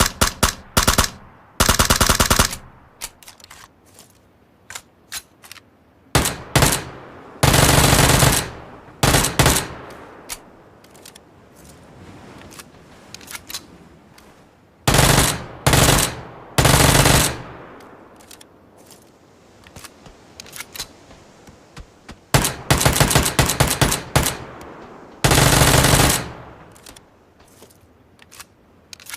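Gunfire sound effects: bursts of rapid automatic fire, each up to about two seconds long, separated by scattered single shots, with echoing tails after the bursts.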